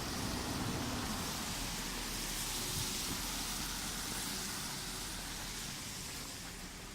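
A car passing on the road: its tyre and engine noise swells to a peak about three seconds in, then fades away.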